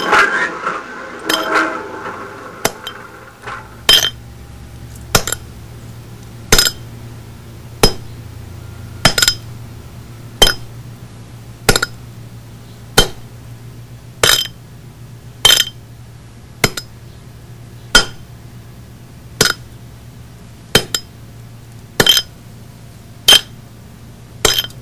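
Sharp metallic clinks of metal being struck, evenly spaced about one every 1.3 seconds, over a low steady hum.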